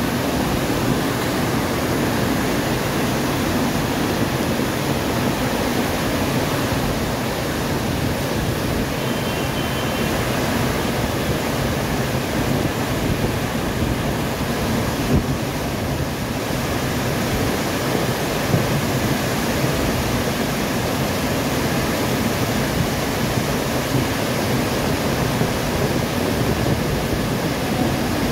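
Muddy flash-flood water rushing in a torrent down a concrete street channel and spilling over a rocky drop: a loud, steady rush of water.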